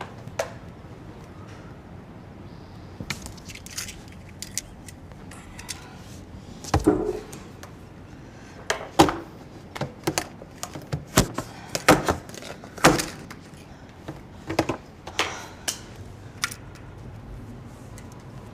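Irregular sharp knocks, clicks and clatters of household objects being handled and set down, most of them in the middle stretch, the loudest around the middle.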